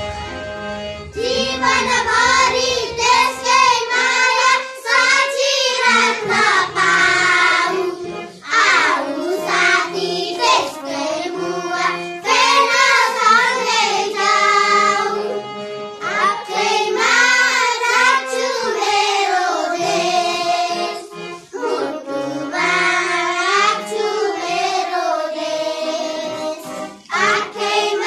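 A small group of young schoolchildren singing a song together, phrase by phrase with short breaths between the lines.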